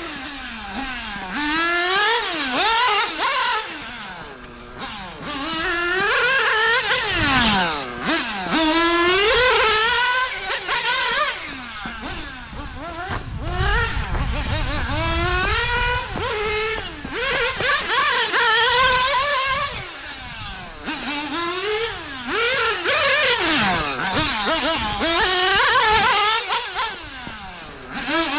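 Nitro engines of 1/8-scale GT radio-controlled cars racing on a track, revving up in rising whines on the straights and dropping back for the corners, over and over.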